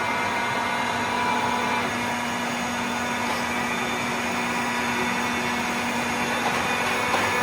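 Cincinnati Vercipower horizontal milling machine running under power: a steady motor hum with gear whine.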